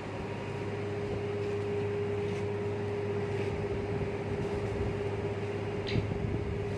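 Steady machine hum with a constant mid-pitched tone over a low drone, and a few faint ticks, one sharper about six seconds in.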